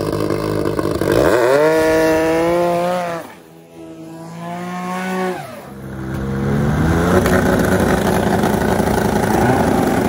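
Turbocharged two-stroke Pro Mod drag sled engines racing. The engine note rises steeply about a second in and holds high, drops away sharply around three seconds in, then builds again and stays loud to the end.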